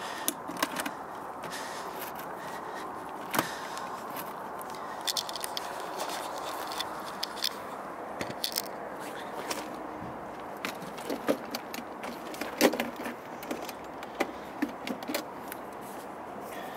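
Scattered light clicks, knocks and scrapes of a metal boiler ash box and its catches being handled, over a steady background noise.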